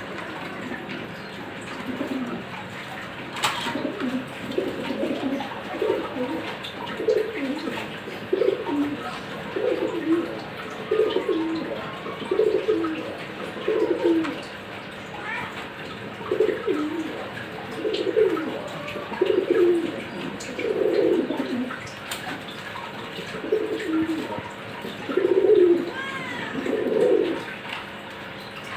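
A bird giving short, low calls over and over, about one a second with a few brief pauses, while faint high chirps come from other small birds.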